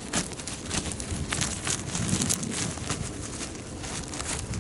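Gloved hands digging in dry, stony soil to unearth wild nobiru (wild onion) bulbs. Soil and grit crumble and scrape in quick, irregular crackles.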